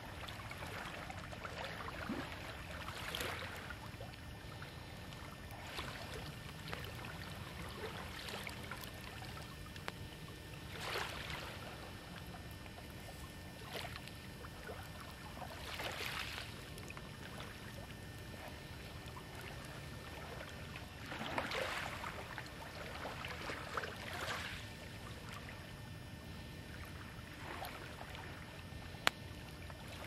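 Small waves washing onto a beach, one swell every few seconds, over a steady low rumble. A single sharp click sounds near the end.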